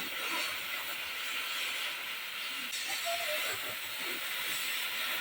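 Steady hiss, strongest in the upper range, with no distinct knocks or tones.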